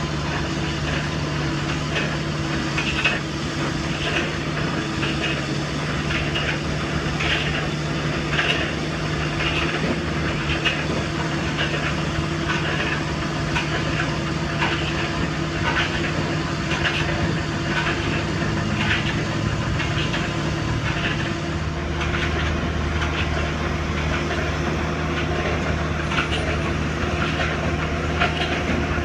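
2015 Watson 1100 short-mast foundation drill rig drilling into hard limestone: the rig's engine runs steadily under load while the rotating drill string gives a regular clatter, a little faster than once a second. About three-quarters of the way through, the clatter mostly stops and the engine note deepens.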